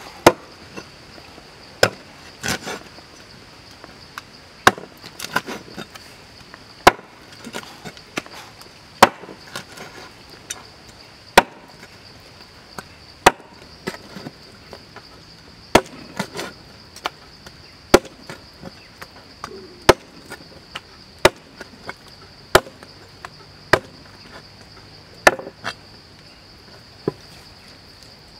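Heavy cleaver chopping through snake meat and bone onto a wooden chopping block: sharp single strikes about once a second, irregularly spaced, some followed by a smaller knock. A steady high insect drone sounds behind them.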